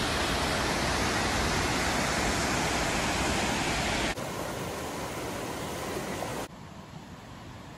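Steady rush of white water from a tall mountain waterfall. It drops abruptly about four seconds in and again about six and a half seconds in, each time to a quieter rush of flowing water.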